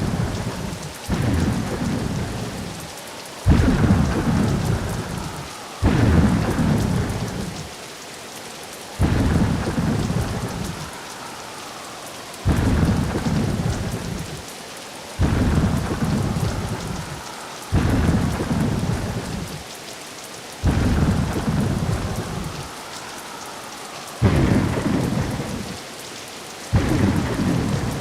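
Ambient sound-effect track of waves breaking on a shore: a noisy surge starts suddenly every two to three seconds, then washes away and fades before the next.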